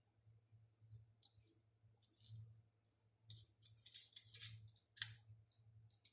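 Utility knife being handled as its blade is changed: light metal and plastic clicks and scrapes, busiest a few seconds in, with one sharp click about five seconds in.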